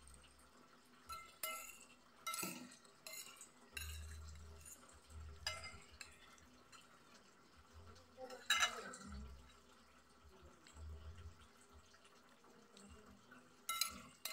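Metal spoon and fork clinking and scraping against a glass plate, a few separate clinks with the loudest about eight and a half seconds in, with chewing between.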